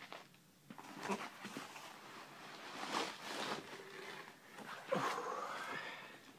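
A white foam packing sheet being handled and pulled out of a cardboard box: bursts of rustling and scraping, with a short squeak of foam on cardboard about five seconds in.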